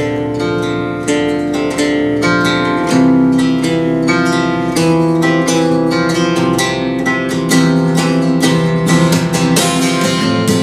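Steel-string acoustic guitar played flat across the lap, its strings struck and plucked in a quick, even run of notes that ring on over one another. The held low chord changes about three seconds in.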